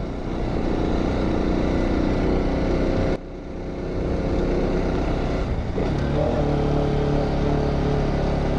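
Bajaj Pulsar RS200 single-cylinder motorcycle engine running on the move. About three seconds in the throttle shuts briefly and the engine then pulls up again, as in a gear change, and the engine note shifts pitch once more near six seconds.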